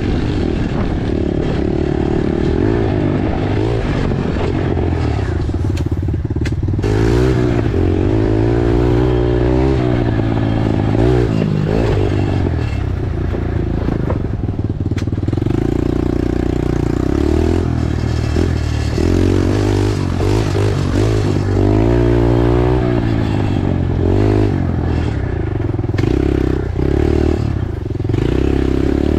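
Pit bike engine running hard on a dirt trail, its pitch rising and falling over and over as the throttle is worked, with a few sharp knocks from the bike over rough ground.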